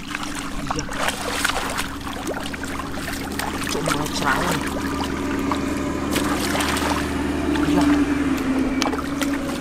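Muddy water splashing and sloshing as hands dig and scoop through the shallows and fish thrash, with a steady motor-like hum underneath.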